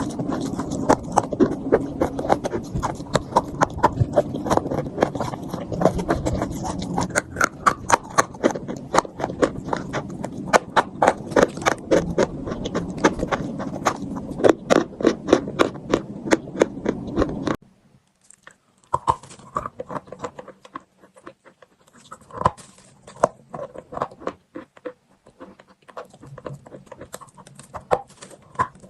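Close-up crunching and chewing of chalk: rapid, sharp crunches over a steady hiss, which cuts off abruptly about two-thirds of the way through, followed by slower, quieter crunches.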